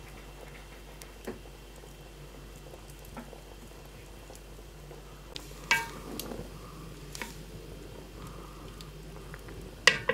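Spoon stirring milk and rice in a metal pan over a wood fire, with two sharp clinks of the spoon against the pan, one about six seconds in and one near the end. A few faint pops come from the burning wood underneath.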